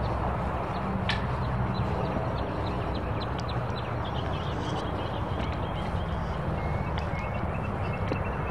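Steady outdoor background rumble with short, high bird chirps scattered throughout.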